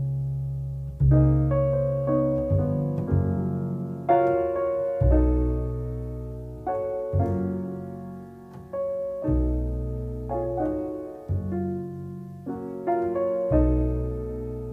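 Jazz piano playing a slow ballad: full chords and single notes struck every second or so, each ringing and fading, over deep bass notes.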